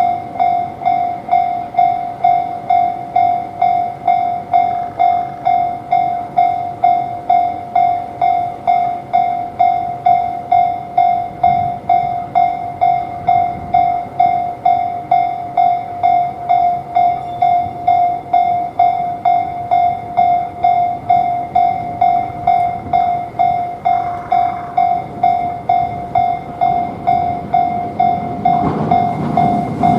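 Japanese railroad crossing alarm ringing its steady 'kan-kan', about two strikes a second, warning that a tram is coming. Near the end a tram's running noise rises beneath it as it approaches.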